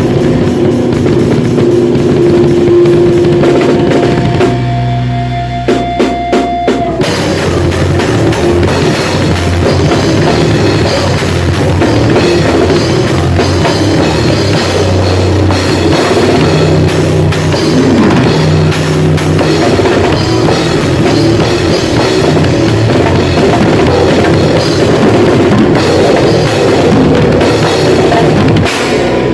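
Grindcore band playing loud: drum kit with distorted electric guitar and bass. A few separate drum hits come about six seconds in, then continuous full-band playing from about seven seconds in.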